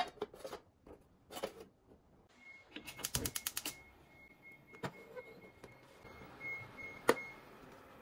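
An aluminium lid is set onto an aluminium mess tin with a few light clacks. About three seconds in, a gas stove's igniter clicks rapidly, about ten times in under a second, as the burner lights, with a faint steady high tone behind it. Near the end the metal tin clanks down onto the burner grate, the loudest knock of all.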